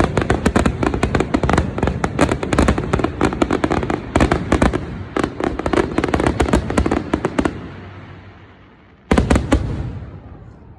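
Fireworks going off in a dense, rapid barrage of bangs that stops about seven and a half seconds in and echoes away. A last short cluster of bangs follows about nine seconds in.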